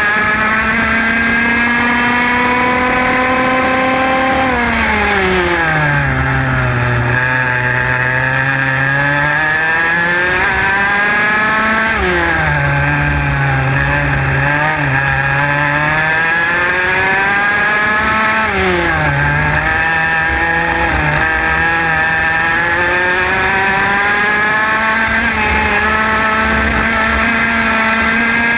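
IAME X30 125cc two-stroke kart engine heard onboard at race pace, its pitch climbing on the straights and dropping steeply three times as the driver brakes for corners, then a long climb near the end.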